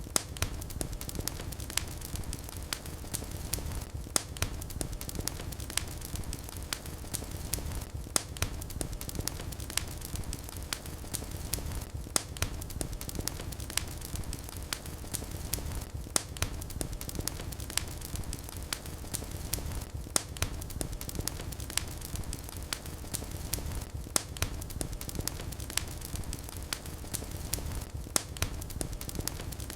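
Fire in a fireplace crackling: irregular sharp pops and snaps, a few louder than the rest, over a steady low rumble of flames.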